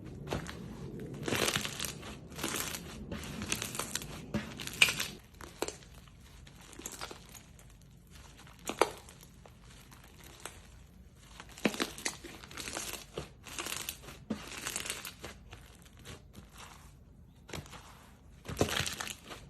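Slime being squeezed and stretched by hand: crinkly, crackling noises in irregular bursts, with a few sharp pops.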